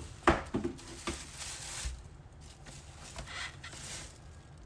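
Thin black plastic bag around a pair of sneakers rustling and crinkling as a hand pulls it back in a cardboard shoebox, in a few separate bursts. A sharp knock about a third of a second in is the loudest sound, with a couple of smaller knocks just after it.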